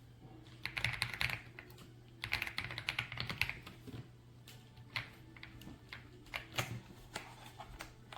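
Typing on a RedThunder K95 mechanical keyboard with pre-lubed linear switches: two quick runs of keystrokes, then scattered single clicks.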